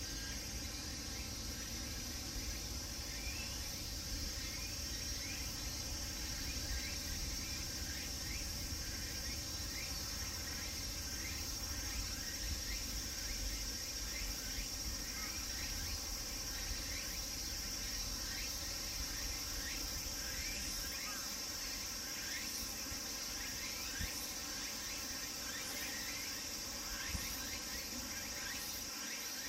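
Cicadas chorusing: a steady high-pitched drone with many short repeated calls layered over it, above a low rumble that fades about two-thirds of the way through.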